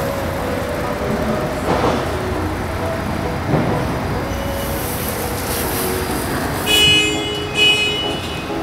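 Steady background noise of a busy outdoor truck show, with two short, high-pitched toots less than a second apart near the end.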